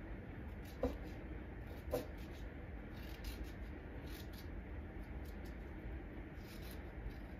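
Quiet food-prep handling: two light knocks about a second apart, then faint scraping as a teaspoon hollows the seeds out of a cucumber half on a wooden cutting board.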